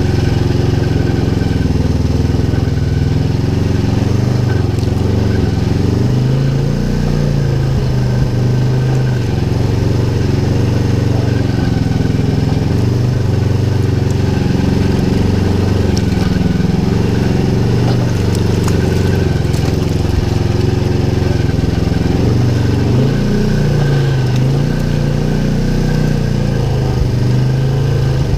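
Polaris RZR XP 1000 side-by-side's parallel-twin engine running as it drives along a dirt trail, the engine note rising and falling with the throttle, heard from inside the cab. The machine is brand new, on its break-in ride.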